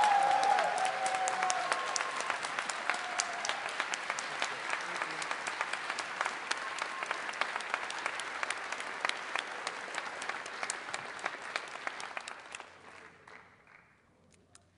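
A large audience applauding, with a few cheers at the start. The clapping thins and dies away about 13 seconds in.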